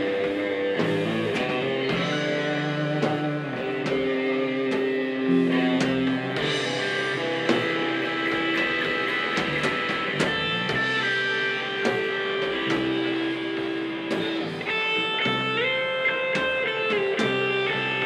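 Live rock band playing an instrumental passage led by electric guitars, with held guitar notes over a steady beat of sharp hits.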